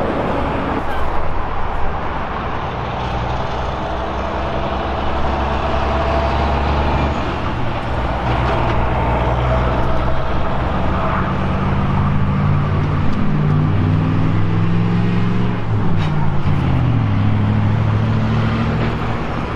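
Engines of trucks and cars running close by on the highway, several low engine notes overlapping, their pitch shifting up and down through the middle and second half as vehicles move slowly.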